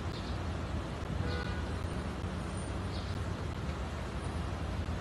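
Steady city street traffic noise: a low, even rumble of vehicles on a busy road, as picked up by a phone's microphone.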